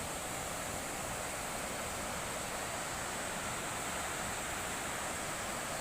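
Steady rushing of a waterfall, an even wash of water noise.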